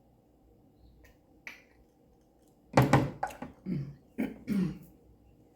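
A woman coughing and clearing her throat: a short cluster of loud bursts about three seconds in.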